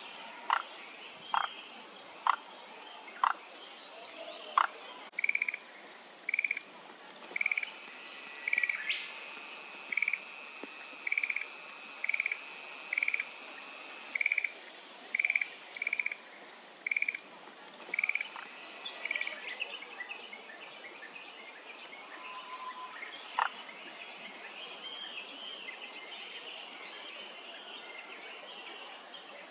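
Frogs calling. First come sharp clicks about once a second, then a run of short, rapidly pulsed calls repeated about once a second. Near the end only fainter scattered chirping is left.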